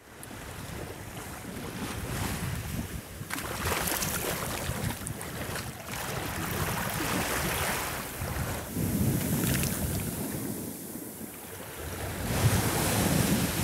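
Small sea waves washing up over wet sand, swelling and ebbing in surges every four to five seconds, with wind rumbling on the microphone.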